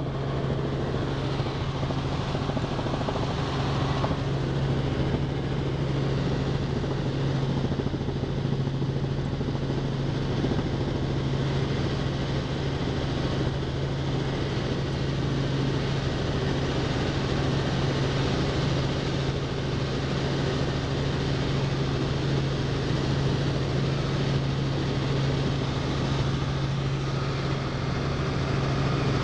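Robinson R44 II helicopter in flight, heard from inside the cabin: a steady drone of engine and rotors with a strong, constant low hum.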